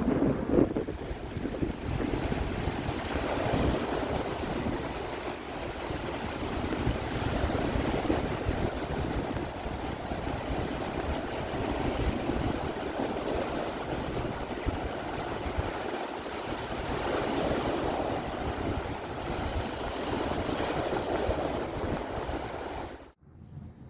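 Ocean surf washing in with wind buffeting the microphone, a steady rushing noise with gusts. It cuts off abruptly near the end.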